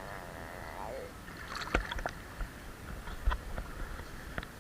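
Swimming-pool water splashing and lapping, with several short sharp splashes.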